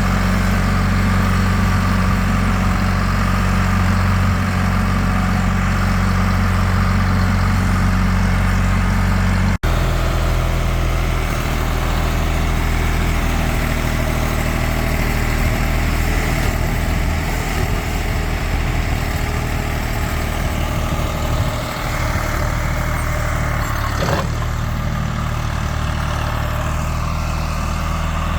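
Vintage John Deere construction tractor's engine running steadily at low pitch, with an instant break about ten seconds in.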